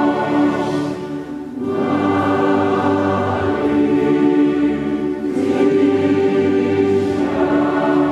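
Large mixed choir of men's and women's voices singing together in phrases, with short breaks between them, backed by a band with bass guitar, drum kit and accordion.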